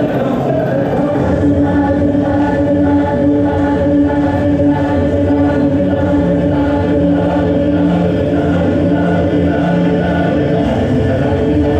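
A choir singing in unison, with long held notes.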